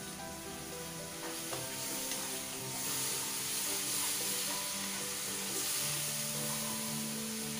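Onion and ground-spice masala sizzling in hot oil in a frying pan while a ladle stirs it. The sizzle grows louder about three seconds in.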